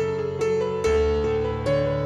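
Calm instrumental background music led by a piano, a new note about every half second over held low bass notes.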